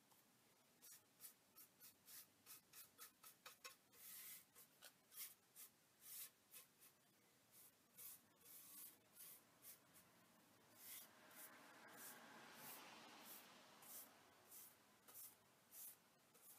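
Faint swishing of a paintbrush spreading wet finish over a wooden board: a run of short, quick brush strokes, with a longer, smoother stroke a little past the middle.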